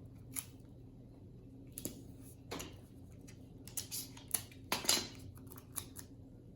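Sticky tape being pulled and torn and pressed onto paper: a string of short, scratchy crackles, the loudest just before five seconds in.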